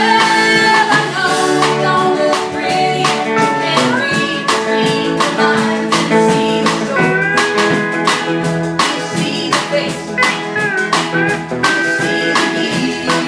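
Live country-blues band playing: electric guitars, bass and drums with a steady beat, and some notes gliding in pitch.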